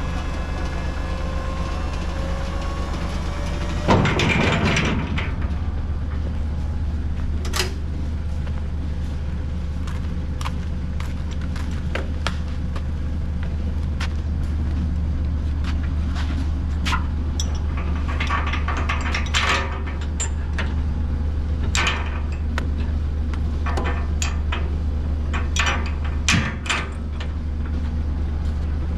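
Heavy vehicle engine running with a steady low rumble, with a loud clatter about four seconds in and scattered knocks and clicks through the rest.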